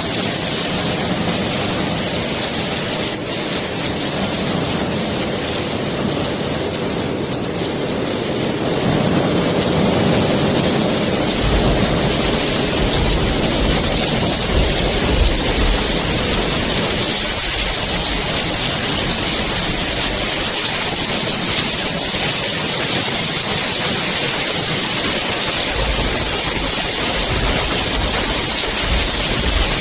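Heavy rain falling steadily, a dense even hiss, with a low rumble coming in about eleven seconds in and again near the end.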